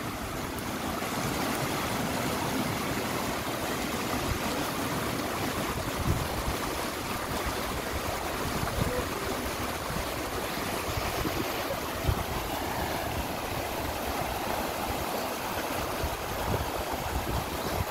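Small mountain stream rushing over rocks and boulders: a steady wash of white water.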